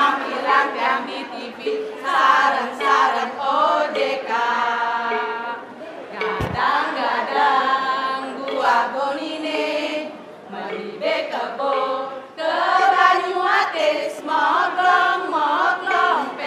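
A group of women singing and chanting together in unison. There is a single sharp thump a little before halfway through.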